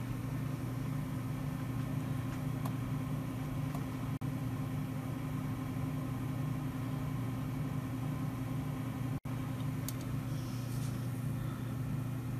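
Steady low machine hum with faint hiss, unchanging, cutting out for an instant twice.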